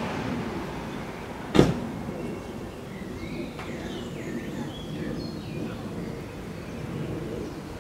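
Outdoor street ambience: a steady low rumble of traffic with birds chirping, and a single sharp knock about a second and a half in.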